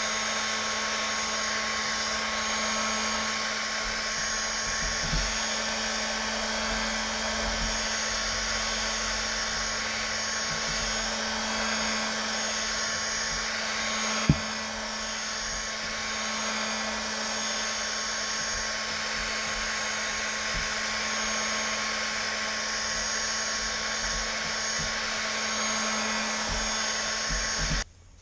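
Hot-air gun blowing steadily, heating the phone's edges to soften the screen adhesive before it is opened, with a sharp click about halfway; it is switched off and cuts out just before the end.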